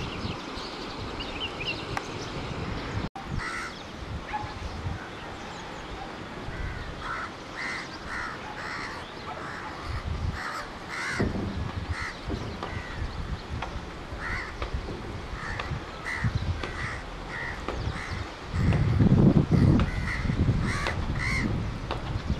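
Crows cawing, many short calls one after another, with a few faint higher bird chirps in the first seconds. A louder low rumbling noise comes in for a couple of seconds near the end.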